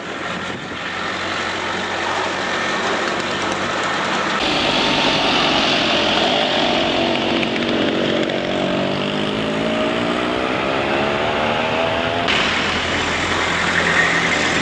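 Road vehicles: the engines of passing cars and pickup trucks, one engine's note rising steadily in pitch in the second half.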